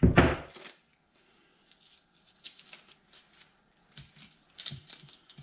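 Masking tape being handled and pressed on by hand: a short, loud rustle right at the start, then soft, scattered crinkles and light clicks.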